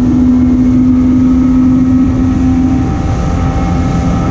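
Small boat's motor running steadily under way, with rushing wind and water noise. The engine note changes slightly about three seconds in.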